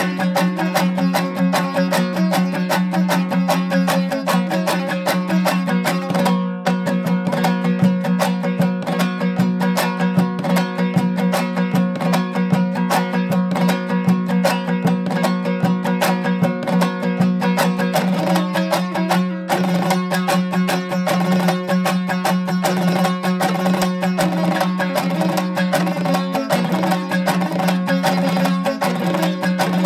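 Instrumental music led by a plucked string instrument playing quick picked notes over a steady low drone, with two brief breaks in the phrasing.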